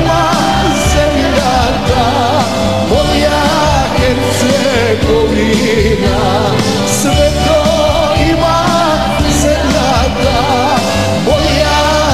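Live pop band music with singing over drums, bass and electric guitars.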